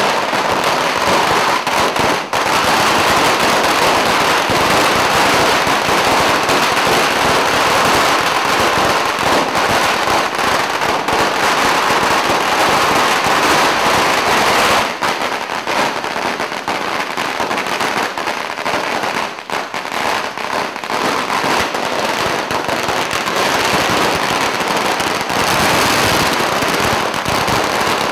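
Long strings of Surinamese pagara firecrackers going off in a dense, unbroken crackle of rapid bangs, thinning briefly about halfway through.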